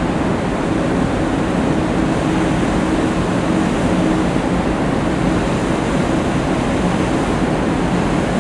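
Steady rushing of churned water in the wake of ships under way, with a low steady engine hum underneath.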